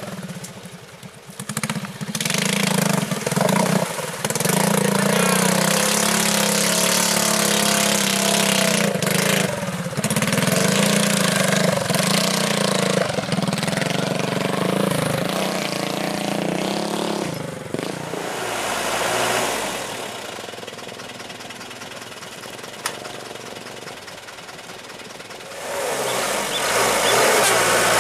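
Truck engine running hard at steady high revs as the stuck truck tries to pull out of deep mud. It eases off well past halfway and revs up again near the end.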